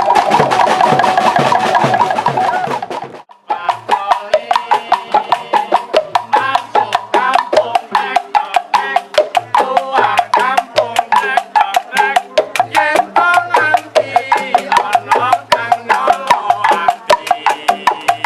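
Music: a held, pitched passage that cuts off about three seconds in, followed by fast, dense percussive music with rapid sharp strikes over melodic notes.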